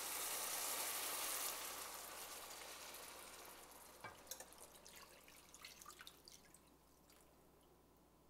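Chicken broth pouring from a glass measuring cup into a hot skillet of sautéed orzo and onion. A steady stream is loudest in the first second or so, then thins and fades. From about four seconds in come a few seconds of scattered drips and small splashes as the pour tails off.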